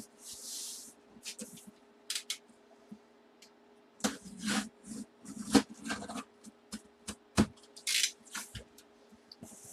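A cardboard mystery box being handled and turned over: scattered taps, knocks and short scraping rustles of cardboard under the hands, busier in the second half.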